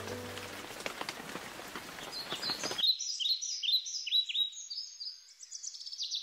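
Rain falling and dripping from a roof eave for about three seconds, then giving way to small birds chirping in quick, repeated short high notes.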